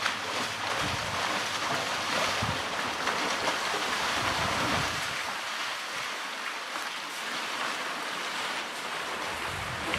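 Water splashing and sloshing steadily as African elephant calves and adults wade and drink in a waterhole, with a few dull low bumps in the first half.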